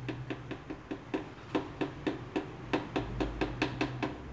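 Red silicone spatula knocking against the walls of a plastic blender jar as raw soap batter of used frying oil and caustic soda is stirred by hand: short, sharp taps, about four to five a second, quickening a little near the end.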